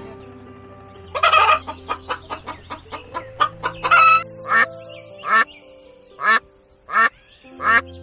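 Chickens clucking and cackling: a fast run of short clucks with louder calls among them, then single calls about once a second, over light background music.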